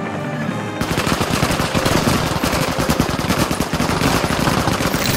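Sustained automatic gunfire from several assault rifles firing together, a dense rapid stream of shots that starts about a second in.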